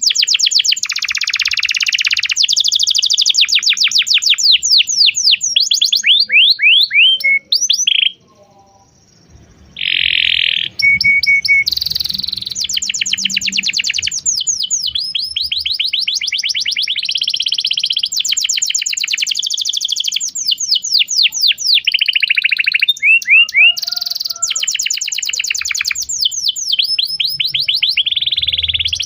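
Domestic canary singing long, fast trills of rapidly repeated chirping notes, switching from one rolling phrase to the next, with a short pause about eight seconds in.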